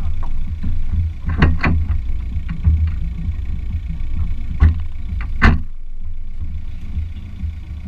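Audi A4 B6's engine running with a steady low rumble, heard close up through a camera fixed to the car's front wing. Short sharp knocks come twice about a second and a half in and twice around five seconds in.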